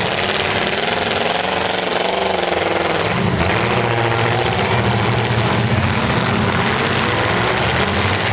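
Demolition derby car engines running loud and rough, revving up and down.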